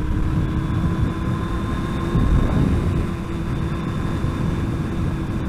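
Yamaha YZF-R1 inline-four motorcycle engine running at a steady, even speed while riding, under heavy low wind rumble on the microphone.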